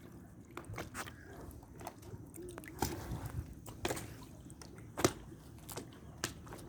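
Water dripping and sloshing, with irregular sharp clicks and knocks, the loudest about five seconds in.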